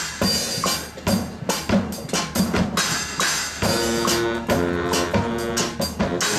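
High school marching band playing: the drums beat on their own for the first half, then the horns come in with held chords over the drums about halfway through.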